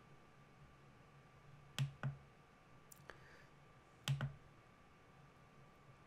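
Computer mouse clicking: two quick clicks, then two more about two seconds later.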